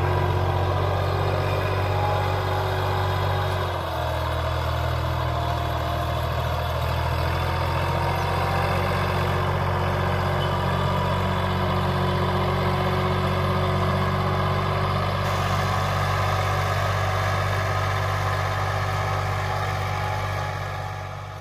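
Massey Ferguson 260's turbo diesel engine running steadily while the tractor pulls a 16-plate disc harrow through the soil. Its note shifts briefly about four seconds in, and the sound fades out at the end.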